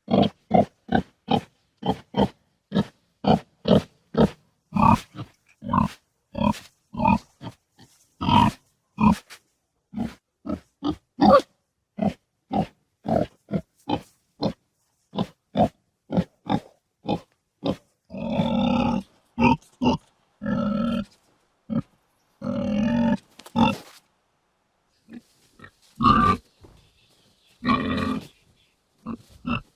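Domestic pig grunting: a steady run of short grunts, about two a second. Past the middle this gives way to a few longer, drawn-out grunts among sparser short ones.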